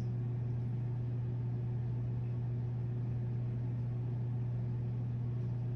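A steady low hum with a faint even hiss, unchanging throughout: room tone.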